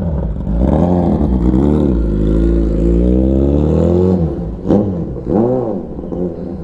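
Kawasaki Ninja 1000SX inline-four on a short Austin Racing aftermarket exhaust, revving in a few rising and falling blips and one longer rising pull, then dropping to a quieter level about four seconds in with one more short blip.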